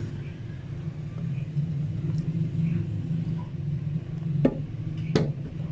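Blended fruit juice poured from a blender jar into a plastic jug, over a steady low hum. Two sharp knocks come near the end.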